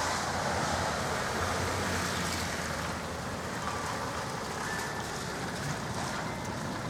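Rain and wind of a thunderstorm making a steady, even hiss.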